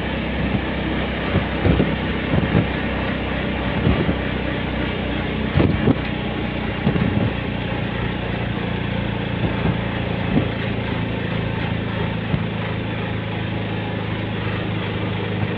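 A vehicle's engine running steadily with road noise, heard from on board while it drives along a highway. Scattered short knocks and rattles come through, most of them in the first half.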